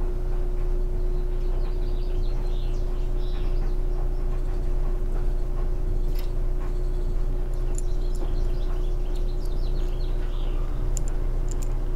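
A steady low hum runs throughout, with faint bird chirps and a few light clicks about six seconds in and near the end.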